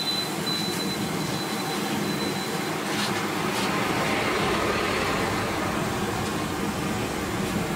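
Hot oil sizzling as dough balls deep-fry in a kadai, over a steady low rumble. A wire skimmer clicks lightly against the pan a couple of times about three seconds in.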